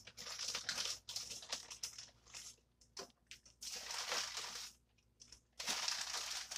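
Plastic bag crinkling in bursts, with a few light knocks as breaded chicken pieces are set on an air fryer's wire rack.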